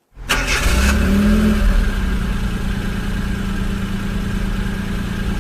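Car engine of a taxi sound effect: a loud noisy start, then the engine running, rising briefly in pitch about a second in and then holding steady.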